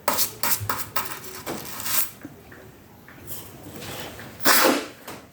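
Metal hand tools clinking and knocking against each other and the metal workpiece: a run of sharp clicks in the first two seconds, then a short, loud rushing burst near the end.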